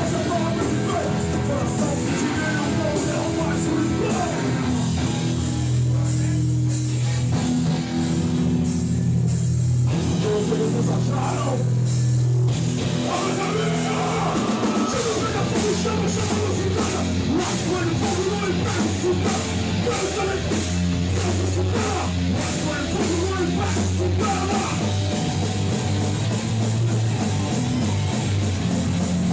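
Hardcore punk band playing live: distorted electric guitars, bass and drum kit, with a sparser stretch of held low notes about six to twelve seconds in.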